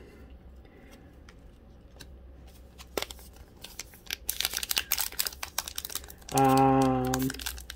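A hockey card pack wrapper crinkling and crackling as it is torn open by hand. It starts about three and a half seconds in after a single click, and the crackle goes on to the end.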